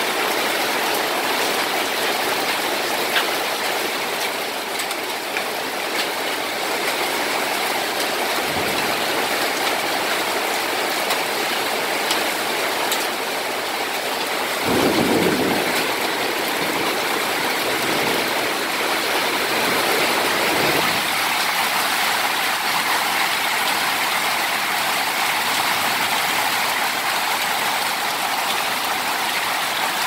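Heavy rain falling steadily on corrugated metal sheet roofing, with a short low rumble about halfway through.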